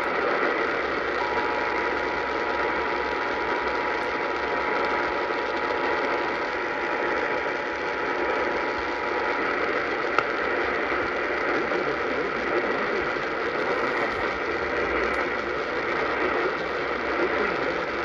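Steady AM-radio static and hiss from a Sangean weather radio's speaker tuned to 570 AM. Two faint steady tones just under 1 kHz sound through the static for about the first half and then stop.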